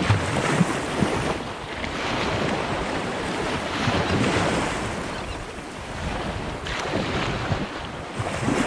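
Surf washing onto a beach, swelling and easing, with wind buffeting the microphone.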